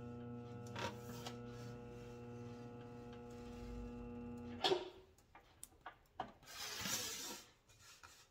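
Motor-driven bead roller running with a steady hum, then stopping with a sharp knock about four and a half seconds in. After it come scattered clicks and scrapes and a short stretch of rubbing as the sheet metal is shifted on the bench.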